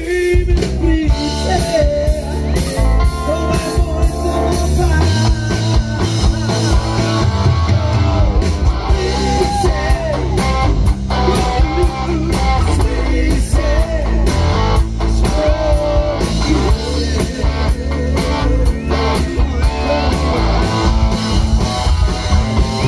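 Live rock band playing amplified: electric guitars and a drum kit under a male lead singer singing into a microphone.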